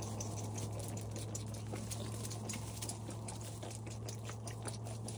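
Baby goat suckling milk from a bottle's nipple: quick, irregular wet clicks and smacks. A steady low hum runs underneath.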